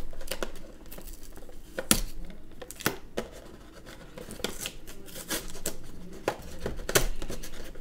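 Packaging of a boxed action figure being handled and opened by hand: irregular sharp clicks and rustles of plastic and cardboard.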